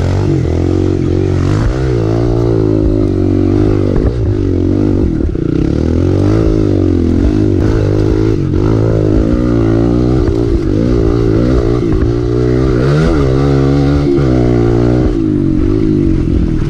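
Kawasaki KLX 140L dirt bike's small single-cylinder four-stroke engine under way on a trail, its revs rising and falling over and over as the throttle is worked and eased.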